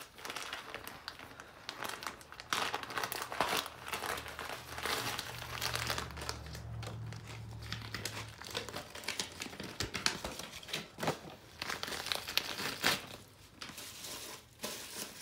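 A small parts package being opened by hand: packaging rustling and being pulled apart, with irregular handling clicks throughout.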